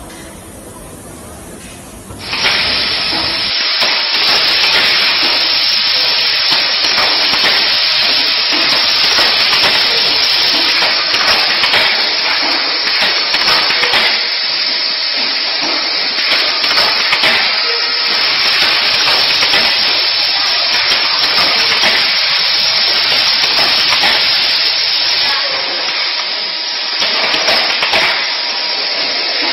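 Loud, steady hissing noise that starts abruptly about two seconds in and holds, with no clear rhythm in it.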